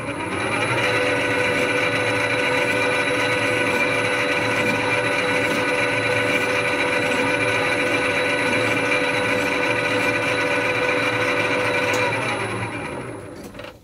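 Metal lathe running with its chuck spinning, its gear drive giving a steady whine of several tones while a hand file is worked against the spinning steel workpiece to deburr a chamfered edge. It spins up in the first second and winds down near the end, the whine dropping in pitch as it slows.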